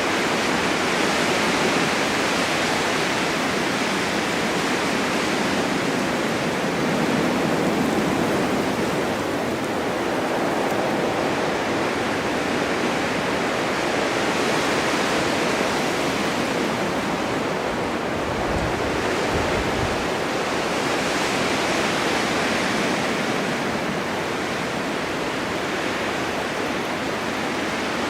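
Blizzard wind driving snow: a steady, dense rushing hiss that swells and eases slowly, with a brief low rumble about two-thirds of the way through.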